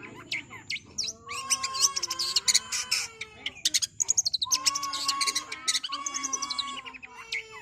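Long-tailed shrike (cendet) singing a fast, dense song of rapid notes and chattering clicks, in bursts with brief pauses.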